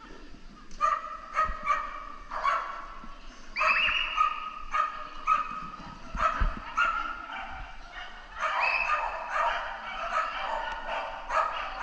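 A dog barking over and over in quick runs of short, fairly high-pitched barks, starting about a second in.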